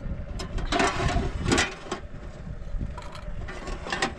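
A ladle dipping into and splashing a large metal pot of thick soup, with several short splashes over a steady low rumble.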